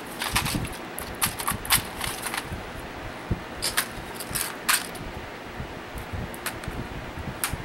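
Clear plastic case of small nail-art jars handled and turned, its lid and jars giving irregular clicks and rattles, over the steady noise of a room fan.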